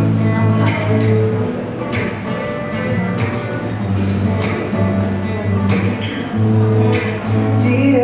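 Acoustic guitar strummed live, sustained chords with a strong stroke about every second and a quarter.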